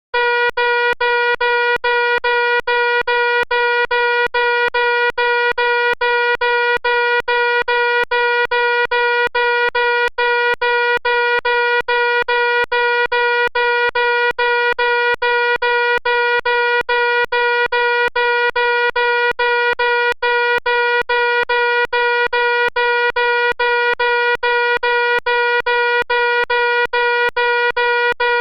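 Fire alarm sounding loud: one steady, unchanging pitch pulsing on and off a few times a second. It starts suddenly.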